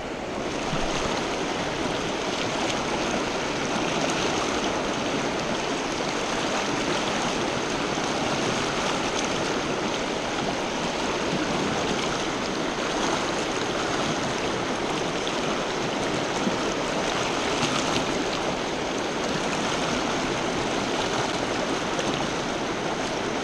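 Shallow rocky mountain stream rushing over stones and riffles: a steady, even rush of water.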